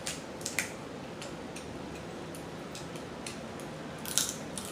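Close-up wet chewing and mouth-smacking while eating seafood: a scattered run of short, sharp smacks, the loudest about half a second in and again near the end.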